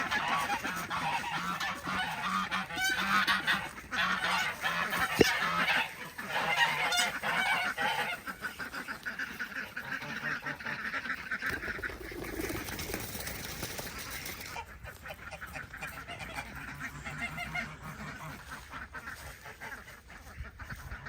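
A flock of farm ducks quacking and honking, many calls overlapping. They are loudest over the first eight seconds, then fainter and more scattered.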